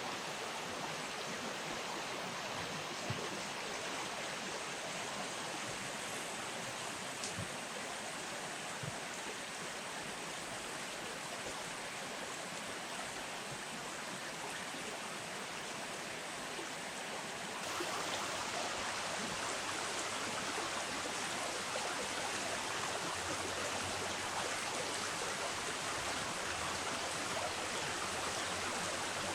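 River water flowing steadily, an even rushing that gets a little louder about two-thirds of the way through.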